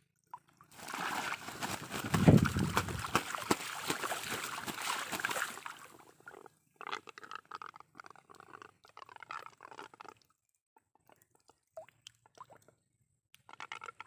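Shallow swamp water splashing and sloshing as a shot purple heron is grabbed and pulled out of it by its legs. The splashing is densest in the first half, peaking about two seconds in, then breaks into scattered smaller splashes and rustles that stop about ten seconds in.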